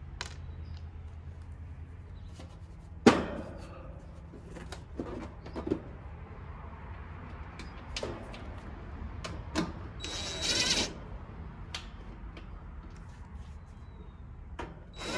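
Clicks and knocks of hardware being handled and fitted, with one sharp knock about three seconds in, over a low steady hum. About two-thirds of the way through, a cordless impact driver runs briefly for just under a second.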